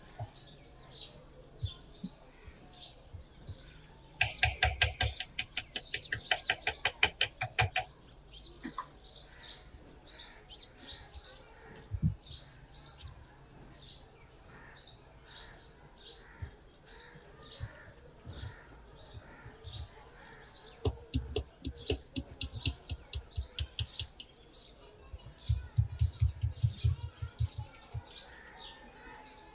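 Three bursts of quick, even scraping strokes, about five or six a second, typical of a hand tool working rusty metal. Under them a small bird chirps over and over.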